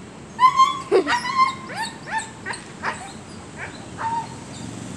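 A dog yipping and whining: one long high whine, then a quick run of short rising yips that thin out toward the end.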